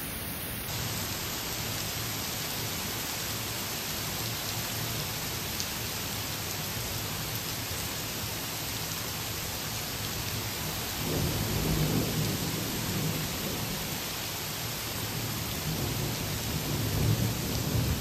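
Heavy rain pouring steadily. Low thunder rolls in about two-thirds of the way through, and again near the end.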